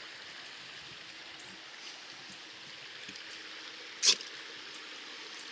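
Steady flow of river water, with one short, sharp strike about four seconds in as a fire starter is struck to light a Trangia alcohol burner.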